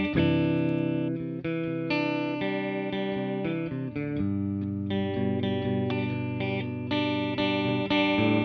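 Electric guitar through effects playing ringing chords, the chords changing every second or two.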